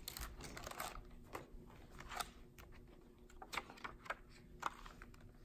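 Pages of a hardcover picture book being turned by hand: faint paper rustling with a handful of soft taps and crinkles spread through.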